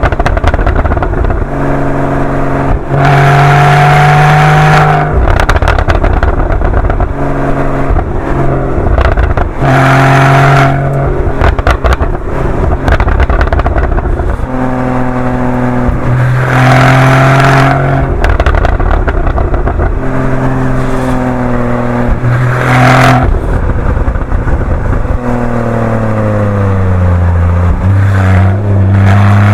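Porsche 981 Boxster GTS's 3.4-litre flat-six through its stock sport exhaust, pulling hard again and again with the revs rising. Between the pulls, on lift-off, comes a run of exhaust pops and crackles. Near the end the revs drop and settle.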